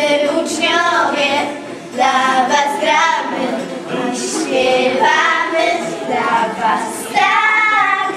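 Young girls singing a lively song together into handheld microphones, their voices bright and continuous with brief breaths between phrases.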